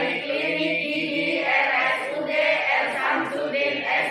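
A group of voices singing together, held notes broken into short syllables.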